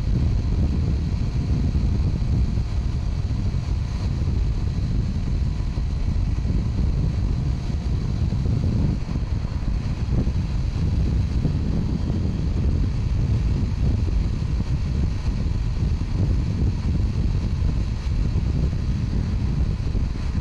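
Steady wind rush on the microphone of a motorcycle being ridden at road speed, with the bike's engine and road noise underneath.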